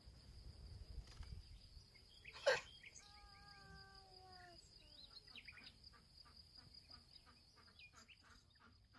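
Quiet outdoor ambience: a steady high insect trill with birds chirping. A single sharp click comes about two and a half seconds in.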